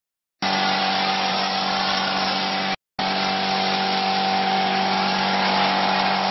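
Mortar plastering machine running steadily, a constant motor hum with a hiss of air as mortar is sprayed through the spray gun onto a wall. The sound cuts out briefly twice.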